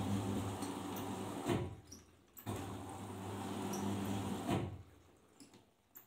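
Arçelik 5083 front-loading washing machine in its wash phase, its overloaded drum of wet clothes turning with a steady motor hum and the load sloshing. The drum stops with a swish about a second and a half in, starts turning again a second later, and stops again with a swish near the end.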